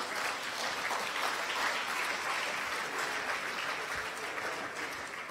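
Audience applauding, the clapping building over the first couple of seconds and starting to die away near the end.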